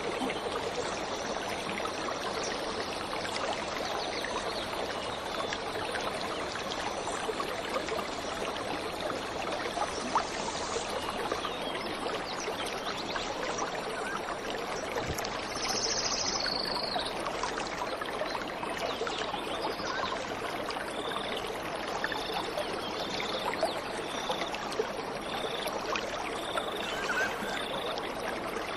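Waterfall water rushing steadily. A bird gives a brief high call about halfway through, and in the second half a bird repeats a short high note a little more than once a second.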